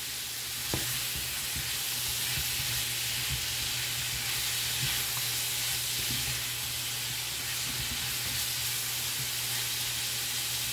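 Sliced smoked turkey sausage sizzling in a skillet as it sautés: a steady frying hiss with a few light clicks. The sizzle is the moisture and juices cooking out of the sausage.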